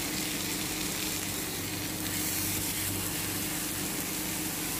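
Marinated chicken breast sizzling on a hot oiled iron tawa: a steady frying hiss.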